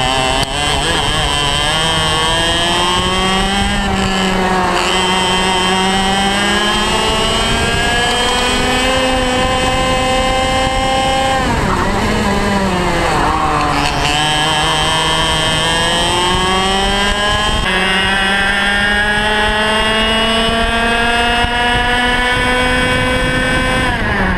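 Onboard sound of a two-stroke racing kart engine at full throttle, its pitch climbing steadily as the kart gains speed down the straights. The revs drop sharply about halfway through as the kart brakes for a corner, then climb again and fall off at the end.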